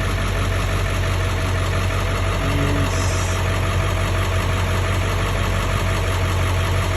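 Ford F-350 pickup's engine idling steadily.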